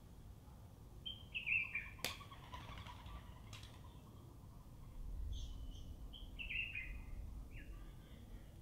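Cape sparrows chirping in short runs of notes, once about a second in and again in the second half, with a sharp click about two seconds in.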